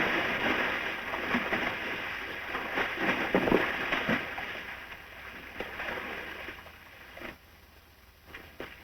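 A sudden loud crash, followed by a few seconds of noisy commotion with scattered knocks that gradually fades away, the sound of a slapstick accident.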